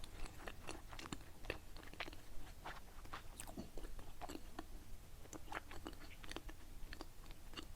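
Close-up chewing of a soft, sticky qingtuan (glutinous rice dumpling): a string of irregular small mouth clicks and smacks.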